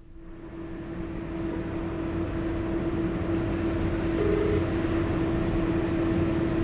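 Yamaha NMAX scooter's engine humming at a steady pitch under a rush of wind noise, which swells over the first couple of seconds and then holds steady.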